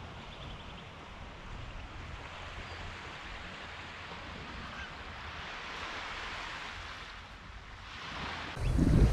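Small waves washing steadily onto a sandy shore, an even hiss. Near the end, wind starts buffeting the microphone with a sudden loud low rumble.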